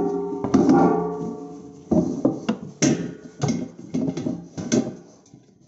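A domestic flour mill's steel flour container and its parts knocking and clattering as they are handled. There are about eight irregular clanks, each ringing briefly like struck metal.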